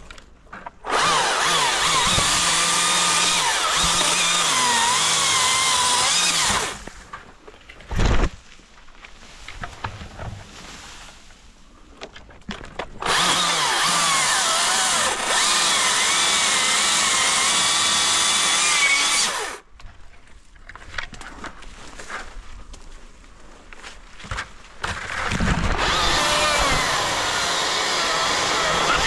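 Husqvarna 542i XP battery chainsaw cutting through small trees in three runs of a few seconds each, its electric motor and chain whining at full speed, the pitch wavering as the chain bites into the wood. Between the runs the saw stops, leaving rustling through branches and a single sharp knock about eight seconds in.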